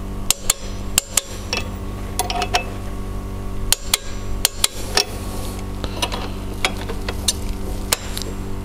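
Torque wrench and socket clicking and clinking on the injector return-line nuts of a Mitsubishi 4D56 diesel as they are tightened to 27 newton metres: a dozen or so separate sharp metallic clicks, spaced irregularly, over a steady low hum.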